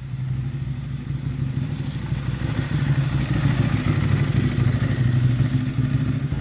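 Motorcycle engine running steadily with a rapid low pulse, getting a little louder about two seconds in.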